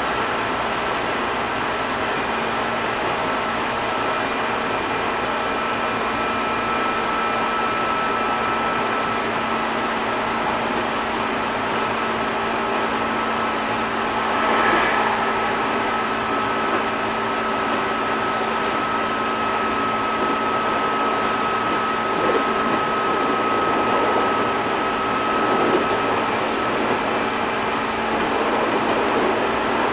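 JR East 205 series 600 subseries electric train running between stations, heard from inside the car: a steady rumble of wheels on rail and running gear with a steady whine. The whine fades near the end, and there is a brief louder swell about halfway through.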